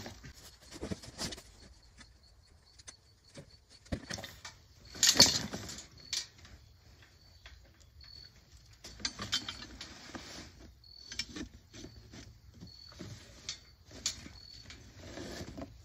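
Metal frame and padded seat of a climbing treestand being handled in its cardboard box: scattered clanks, knocks and cardboard rustles, the loudest clatter about five seconds in.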